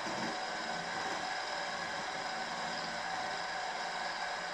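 Milling machine running steadily, its end mill cutting a quarter-inch-wide slot, 5/32 in deep, into the top of a model traction engine's cylinder block casting.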